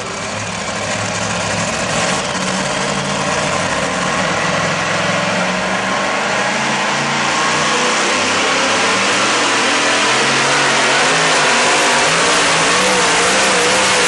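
The supercharged engine of a two-wheel-drive pulling truck running hard under load as it drags the weight sled, growing gradually louder, its pitch wavering slightly.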